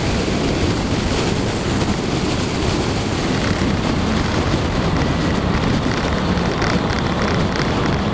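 Wind rushing steadily over the microphone of a motorcycle under way, with engine and road noise underneath.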